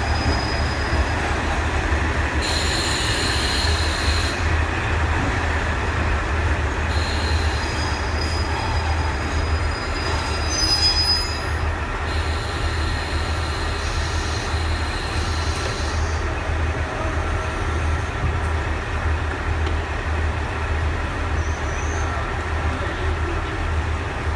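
KiHa 40 series diesel railcar train pulling into the platform and braking to a stop, its diesel engines giving a steady low rumble. Brakes and wheels squeal in thin high tones on and off, strongest about ten seconds in as the train halts, and the engines then idle at the platform.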